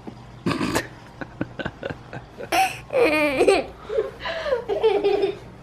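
High-pitched laughing and squealing from a person, coming in short runs in the second half. A brief noisy burst and a few light clicks come before it.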